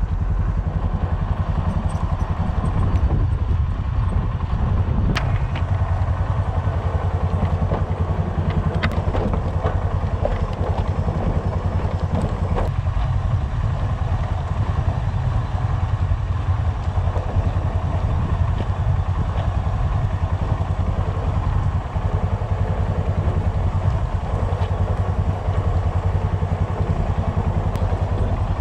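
A vehicle engine running steadily at low revs as the rig rolls along a dirt trail behind a dog team, with a few scattered knocks and clatter from the rig.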